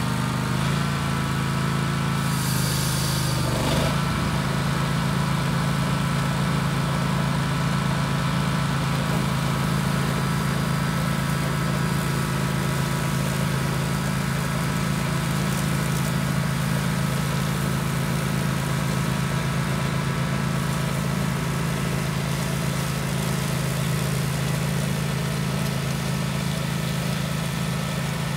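Kawasaki engine on a DR brush cutter running steadily on its newly replaced carburetor. Its pitch wavers briefly in the first few seconds, then holds even.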